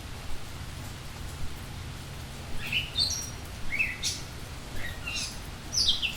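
A bird chirping over a steady hiss of falling rain. A run of short, quick chirps begins about two and a half seconds in, and a falling note comes near the end.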